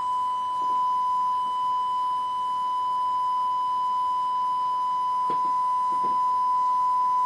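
One continuous steady beep at a single pitch, a pure electronic tone like a censor bleep, with faint speech just audible underneath it.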